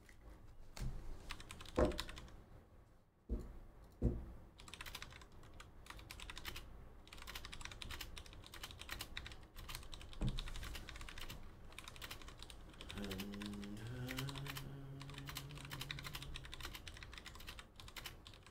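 Typing on a computer keyboard: rapid clicking of keys, with a few separate louder knocks in the first four seconds. Past the middle, a low hum holds for about three seconds over the typing.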